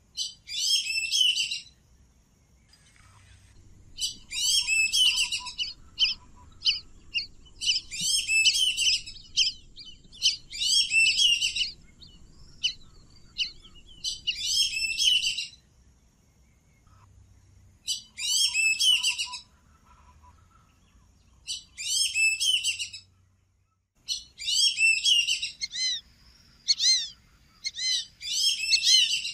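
Lesser whistling ducks calling: bursts of shrill, high whistled notes, each about a second long, repeated every couple of seconds with short pauses between.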